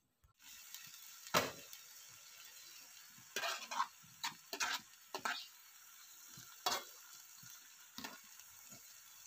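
Food frying in hot oil, a steady faint sizzle, with a spatula scraping and knocking against the pan several times.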